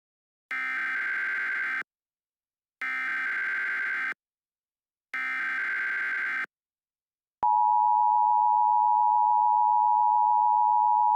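Emergency Alert System tones: three short bursts of the screeching digital SAME header data, then about seven seconds in the steady two-tone EAS attention signal starts and holds.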